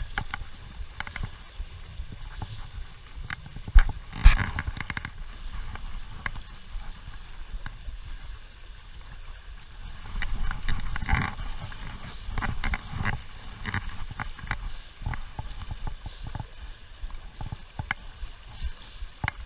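River water rushing and sloshing, with a low rumble and scattered irregular clicks and knocks; two sharp knocks about four seconds in are the loudest, and the water noise swells about ten seconds in.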